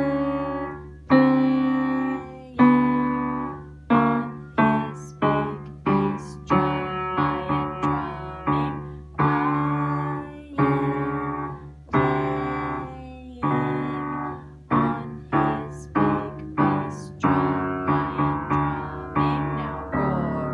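Upright piano played with heavy, accented strikes in the low and middle register, each note or chord hit hard and left to ring and die away, the low notes sounding on under the next ones. Slow, spaced strikes at first, then quicker groups of notes.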